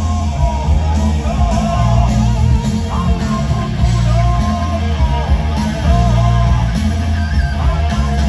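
Loud rock music with a heavy, repeating bass line and pitched melody lines wavering above it.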